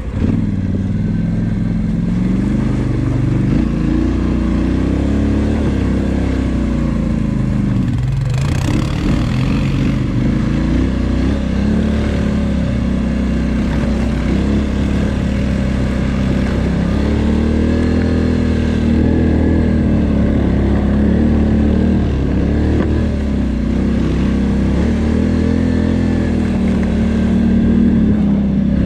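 2019 Polaris Sportsman XP 1000 ATV's twin-cylinder engine running under way, its pitch rising and falling as the throttle is worked, with a short rush of noise about eight seconds in.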